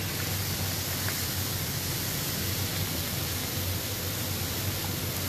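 Hot tub jets churning the water: a steady rushing noise with a low hum underneath.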